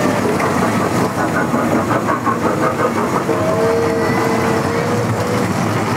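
Small children's ride train running along its rail track close by, with a steady, unbroken running noise.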